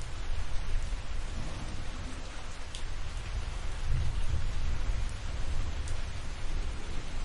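Steady rain falling, with thunder rumbling low underneath and swelling about four seconds in. A few single drops tick out above the rain.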